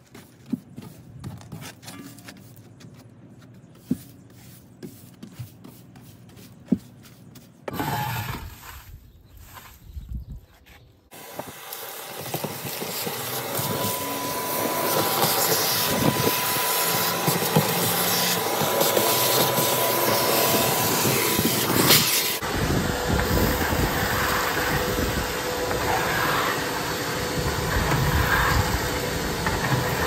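Shop vacuum running steadily with a loud rushing hiss and a faint whine, starting about a third of the way in. Before it, light scrapes and knocks of a brush sweeping debris on the boat floor.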